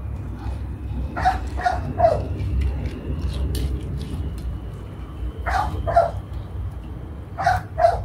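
A small dog barking in short sharp yips, in quick groups of two or three. A steady low rumble runs underneath.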